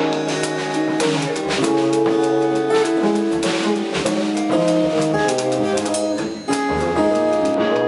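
Live jazz band playing: electric guitar notes and chords over a drum kit with busy cymbal work and upright bass. The sound dips briefly near the end and comes straight back.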